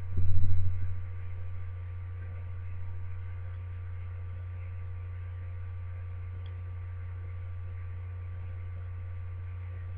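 Steady low electrical hum, with a brief louder low rumble in the first second.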